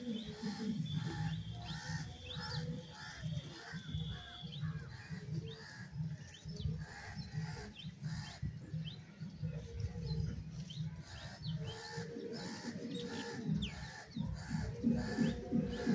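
Small birds chirping in short rising calls, over a low, rhythmic pulsing of about three beats a second that swells near the end.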